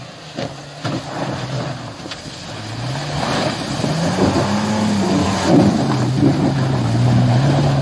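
Toyota FJ Cruiser's 4.0-litre V6 revving up and down under load as its tyres spin and churn through slush, water and mud, getting louder from about three seconds in as it comes close. A few sharp knocks in the first two seconds.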